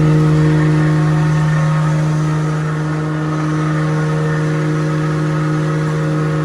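Pinewood grinding (sawdust powder) machine running, a steady loud mechanical hum with a strong low drone and several steady higher tones above it.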